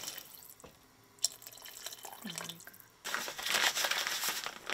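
Water pouring from a kettle into a pot of bok choy, tapering off within the first half second. A sharp click follows about a second later, then a sudden hissing, rustling noise starts near the end and is the loudest sound.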